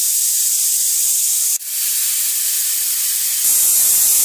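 Pressure cooker whistle: steam hissing hard out of the weight valve on the lid, the sign that the cooker has come up to pressure. It breaks off sharply about a second and a half in, starts again, and is a little louder near the end.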